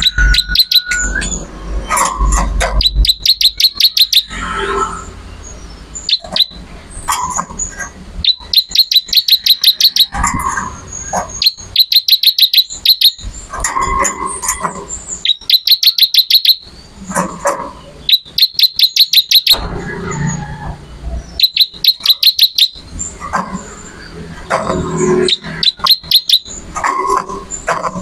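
Ciblek (prinia) singing: a string of rapid trills around 4 kHz, each lasting about a second and repeated every one to two seconds, with softer, lower chirps between them.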